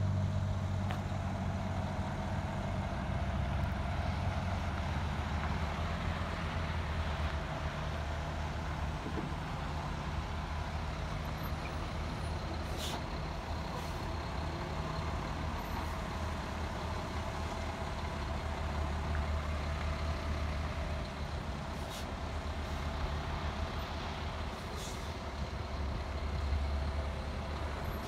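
Diesel tractor unit pulling an end-dump trailer, its engine running at low speed as the rig turns, with a steady low rumble that swells and eases under load. A few brief air-brake hisses are heard.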